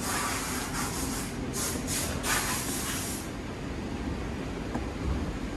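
A run of short hissing blasts, about six in the first three seconds, that then stop, leaving a steady low background noise.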